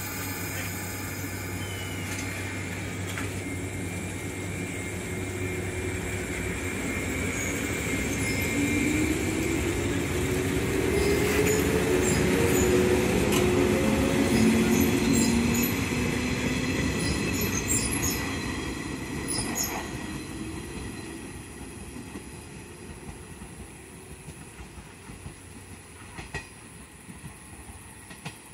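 JR West 115 series electric local train pulling away and accelerating past: the traction motors give a whine that rises in pitch, loudest about halfway through, with clicks from the wheels. It then fades as the train draws away.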